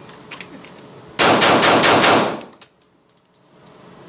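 Taurus G3C 9mm compact pistol firing five rapid shots, about a fifth of a second apart, in an indoor range.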